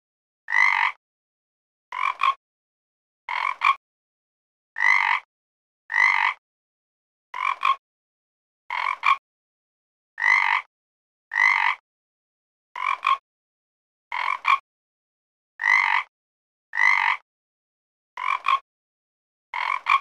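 A frog croaking over and over at a regular pace, about one short croak every second and a half, some croaks split into two quick notes, with silence between them.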